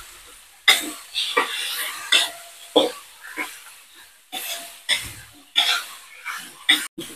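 Metal spatula scraping and knocking against a wok while diced chicken and shallots are stir-fried in hot oil, about one stroke every two-thirds of a second over a light frying sizzle.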